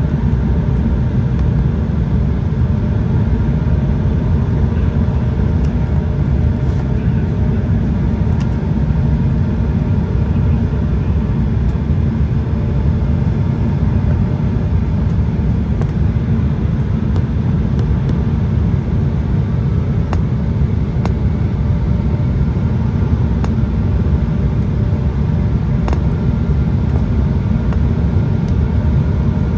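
Steady cabin noise of an Embraer 175 airliner on approach, heard from a window seat over the wing: its GE CF34-8E turbofans and the rushing airflow blend into a constant low rumble.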